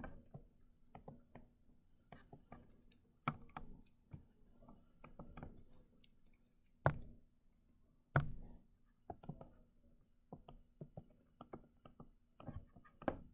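Faint, irregular taps and clicks of a stylus on a tablet screen during handwriting, with a few sharper knocks now and then, over a faint steady hum.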